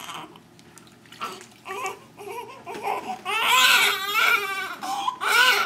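Newborn baby crying while being bathed: short fussy cries at first, then a loud wavering wail about three seconds in, and another cry near the end.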